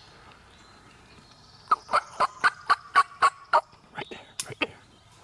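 Wild turkey calling: a quick run of about eight loud, sharp yelps, about four a second, then a few softer ones.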